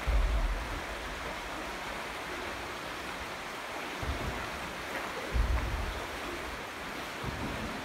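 Steady rushing outdoor noise with irregular low rumbles of wind buffeting the microphone, the strongest right at the start and about five and a half seconds in.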